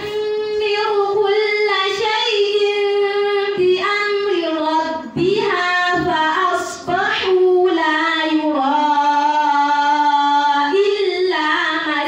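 A female voice reciting the Qur'an in Arabic in melodic tajwid chant, drawing out long held notes with brief pauses for breath. The pitch steps down partway through and settles on a lower sustained note.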